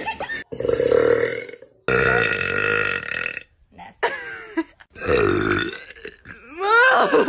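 A series of loud human burps, one after another. One long, drawn-out burp starts about two seconds in and lasts about a second and a half. The last burp, near the end, sweeps in pitch.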